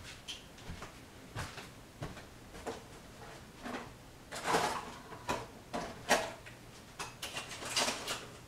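A string of irregular knocks, clicks and rustles, as of things being handled in a small room. They are busiest and loudest about halfway through and again near the end.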